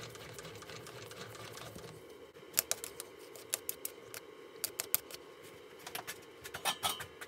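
Small lathe chuck turned by hand while a threading die cuts a thread on a brass part: a rapid rasping clatter for about two seconds, then a dozen or so irregular sharp metallic clicks and taps.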